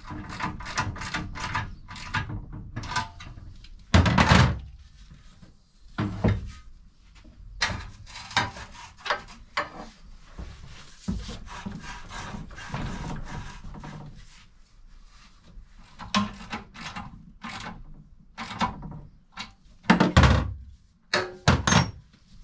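Motorcycle exhaust pipe and silencer being handled and pushed together at a workbench: an irregular run of metal knocks, clunks and scraping, the heaviest clunks about four seconds in and again near the end.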